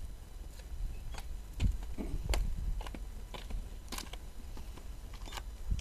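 Scattered light clicks and knocks over a steady low rumble, with a louder thump about a second and a half in and another near the end.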